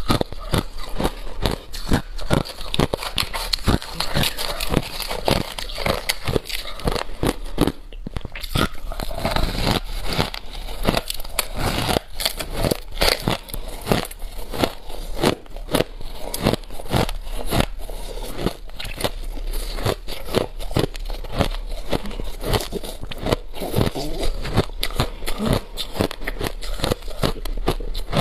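Crushed ice being bitten and chewed close to a clip-on microphone: dense, irregular cracking and crunching that goes on almost without a break.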